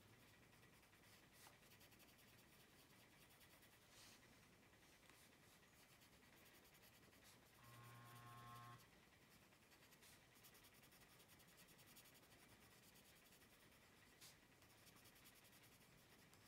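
Faint scratching of a Faber-Castell Polychromos coloured pencil shading on paper. A brief low hum comes in about halfway through.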